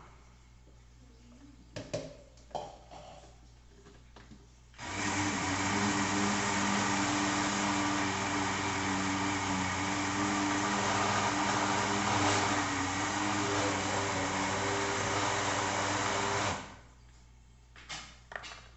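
Electric blender switched on and running steadily for about twelve seconds, beating the pie batter, then switched off. A few light knocks come before it starts.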